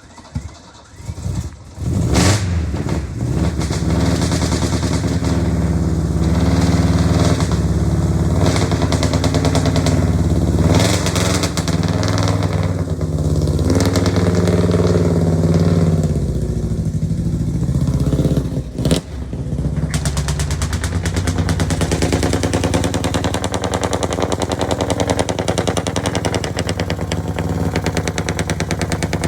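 Four-cylinder pickup engine with a true dual exhaust, a muffler on each pipe: it starts about two seconds in and is revved up and down, and after a short break about 19 s in it runs steadily at idle.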